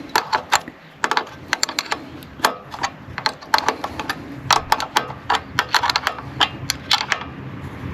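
Small metal parts of a lawnmower carburetor being handled and fitted: an irregular run of sharp clicks and light taps.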